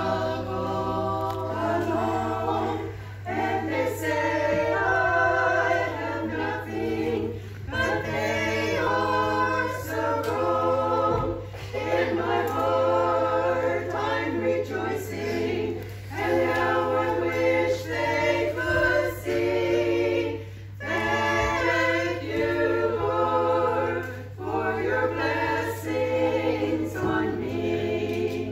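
A small choir of older women singing together in phrases, with short breaks between them. A steady low hum runs underneath.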